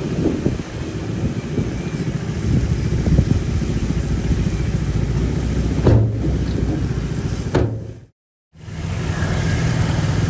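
Heavy diesel engine of earth-moving machinery running steadily, with a couple of short knocks. The sound cuts out for half a second about eight seconds in, then comes back as a steadier hum.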